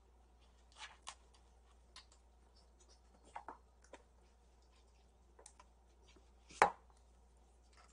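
Scattered light clicks and taps from kittens at play, with one sharp knock about six and a half seconds in.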